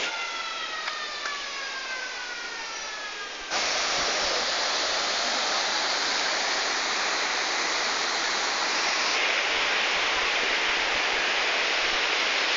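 Steady rushing noise of a rocky mountain river. It jumps louder about three and a half seconds in, with a few faint tones sliding slowly downward before the jump.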